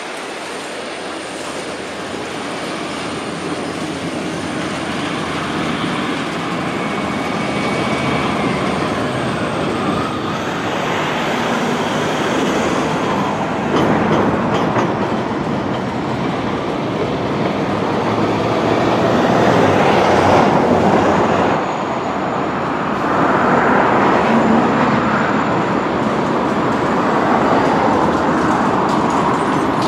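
Freight train cars rolling along curved track: steel wheels clattering with thin wheel squeal, the noise growing louder as diesel-led trains pass close by.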